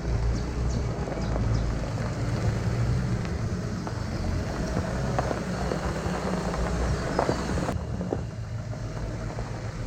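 A car engine running with a steady low rumble. The sound changes abruptly about eight seconds in, as at a cut.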